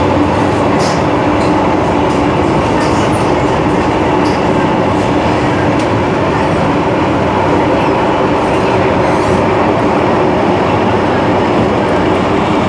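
Interior running noise of an MTR M-Train metro car travelling through a tunnel: a steady, loud roar of wheels on rail with a steady hum and a few faint ticks.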